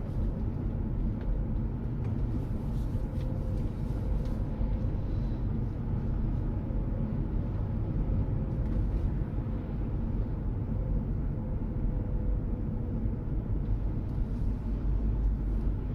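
Car interior road noise while driving: a steady low rumble of engine and tyres, with a faint even hum.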